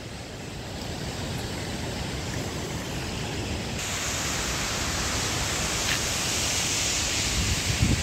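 Steady rush of a mountain waterfall's falling water. The hiss turns brighter suddenly about four seconds in, and wind buffets the microphone near the end.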